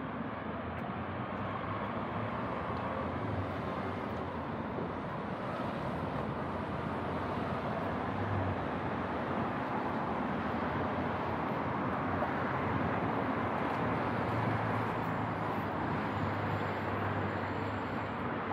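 Steady road traffic noise, with engine hum swelling as vehicles pass about eight seconds in and again later.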